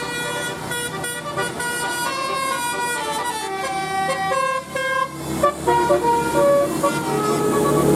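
Indonesian bus telolet horn playing a melody of stepped notes, held notes at first, then shorter, choppier notes from about five seconds in.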